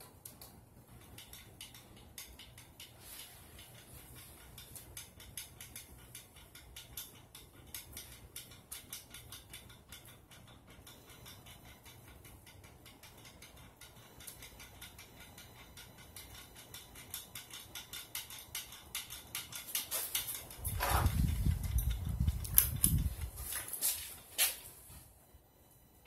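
Hunter Clarion ceiling fan running, with a faint steady low hum and a fast, even ticking. About twenty seconds in, a louder low rumble lasts for about three seconds.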